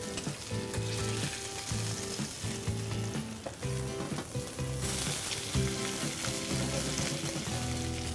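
Cod fillet frying in hot oil and butter in a non-stick pan: a steady sizzle that grows louder about five seconds in.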